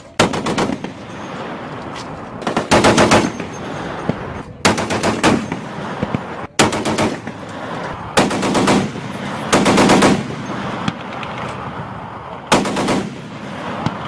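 M2 Browning .50 caliber heavy machine gun firing about seven short bursts of a few rounds each, one every second or two, with the reports echoing between bursts.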